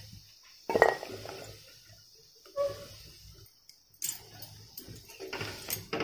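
Drumstick pieces in boiling water in a kadai, with a sharp knock about a second in; from about four seconds in, a wooden spatula stirs and scrapes them in the pan with repeated clicks.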